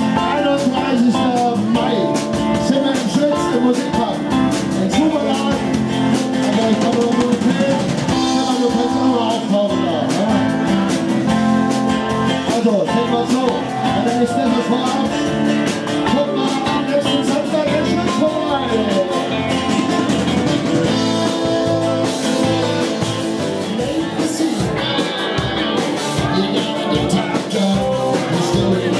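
Live band playing: a man singing at the microphone over strummed acoustic guitar, electric guitar and drum kit.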